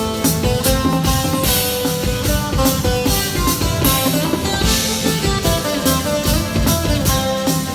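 Instrumental medieval folk rock band playing, guitar over a steady drum-kit beat with cymbal crashes.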